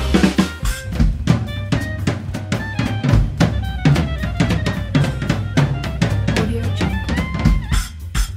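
Background music with a steady drum-kit beat under pitched instrumental notes.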